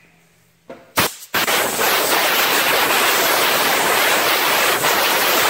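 Compressed-air blow gun blowing sanding dust off scuffed bodywork: two short puffs about a second in, then a long, loud, steady hiss of air.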